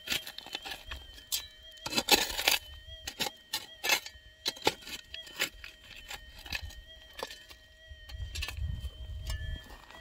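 Short shovel digging into stony gravel: repeated scrapes and clacks of the blade against rock and loose stones, loudest around two seconds in, over a faint steady tone from the metal detector's threshold.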